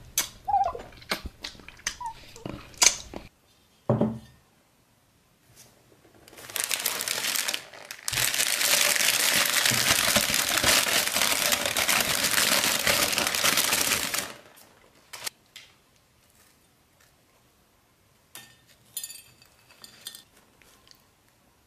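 Thin plastic bag crinkled and rustled between the hands for about eight seconds, the loudest sound here. It comes after a few clinks and scrapes on a china plate, with scattered light clicks near the end.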